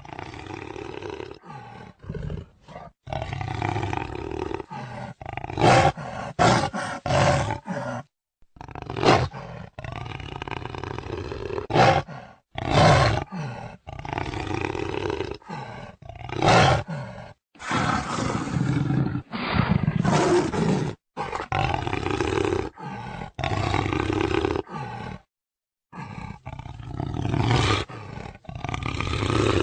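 Jaguar roaring and growling: a series of loud calls, each a second or two long, joined by sudden cuts with brief silent gaps between some of them.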